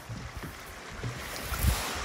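Wind buffeting the microphone over waves at a pebble shore, with irregular low knocks, one louder about one and a half seconds in.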